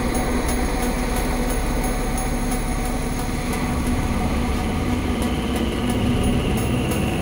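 Eurorack modular synthesizer drone: a dense, steady low texture of held tones under a wash of noise, with faint scattered high clicks, soaked in heavy reverb.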